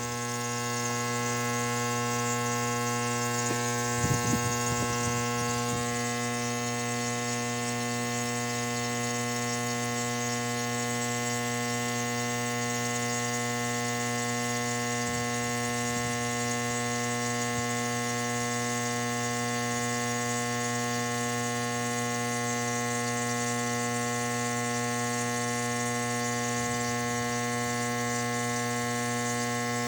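Compressor nebulizer running: a steady electric buzzing hum with many evenly spaced overtones, unchanging throughout.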